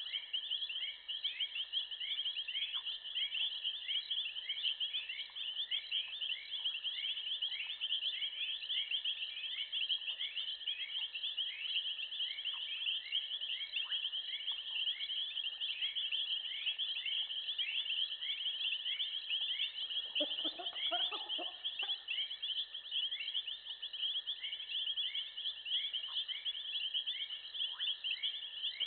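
A dense, steady chorus of high, rapidly repeating chirps, typical of insects calling in the bush, with a steady high tone beneath it. About twenty seconds in, a short, lower animal call stands out briefly.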